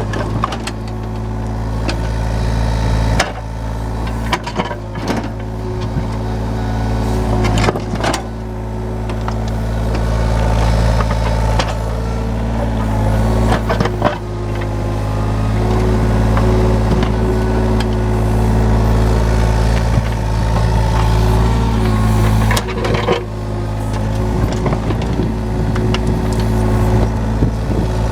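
Yanmar diesel engine of a John Deere 35G mini excavator running steadily. It grows louder about eight seconds in and eases back about twenty-two seconds in, with a few sharp knocks along the way.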